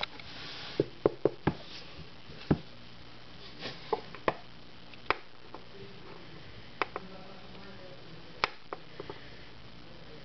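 A series of sharp, irregularly spaced clicks and taps, about a dozen, bunched around one to one and a half seconds in and then scattered more sparsely, over a faint steady hiss.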